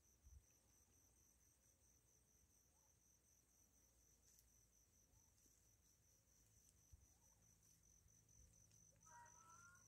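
Near silence, with faint steady high-pitched insect chirring, typical of crickets, and a soft bump just after the start.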